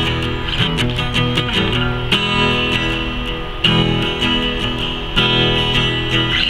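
Acoustic guitar strummed and picked in an instrumental passage with no singing, the chords changing about every second and a half.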